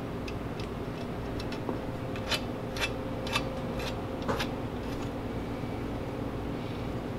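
A handful of sharp, irregular metal clicks and taps as steering parts are handled and fitted at a front spindle, over a steady low hum.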